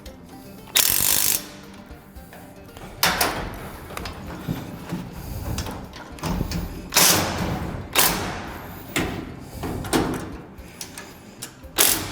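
Impact wrench running in short bursts, about seven of them, as the lift frame's 17 mm bolts are tightened down.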